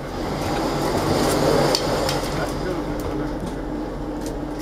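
TEP70 diesel locomotive rolling slowly closer with its V16 diesel engine running, growing louder toward a peak about a second and a half in. A few sharp metallic clanks come around two seconds in and again near the end.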